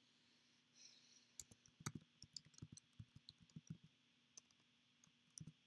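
Faint clicking of keys being typed on a MacBook keyboard: a quick run of key clicks over about two and a half seconds, then a few scattered clicks near the end.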